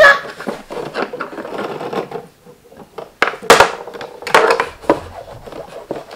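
Tabletop foosball game in play: a small plastic ball knocking against the figures and the wooden sides, with the rods clicking and clattering. There are a few louder, sharp knocks about three to four and a half seconds in.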